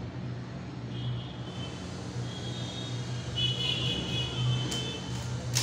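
A steady low hum with faint wavering high tones above it, and two sharp clicks near the end as a metal wire stripper is handled.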